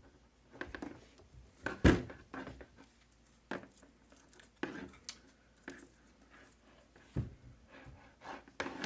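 Handling noise at a workbench: scattered light knocks, clicks and rustles as objects are picked up and set down, with a sharper knock about two seconds in and another near seven seconds.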